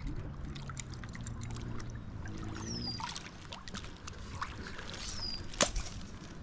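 Wading and digging among rocks in a shallow river: water sloshing and trickling, with scattered small clicks and one sharper knock about five and a half seconds in. A bird gives a short high whistle that falls in pitch, twice.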